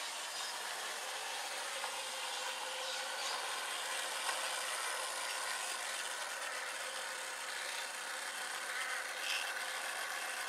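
Steady whir of a 1:24 scale model tram running along its garden track: the small electric motor and gearing humming as the wheels roll on the rails.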